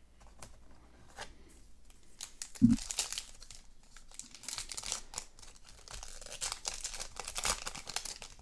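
A trading-card pack wrapper being torn open and crinkled, with a single thump about a third of the way in, then steady crinkling and rustling.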